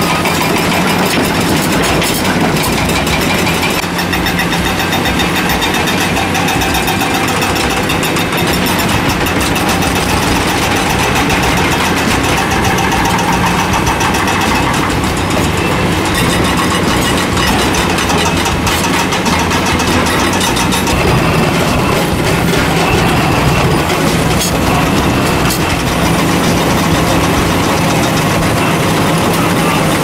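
Excavator-mounted rock-ripping and breaking attachments working limestone: a steady, dense rattle of rapid impacts over the running excavator engine.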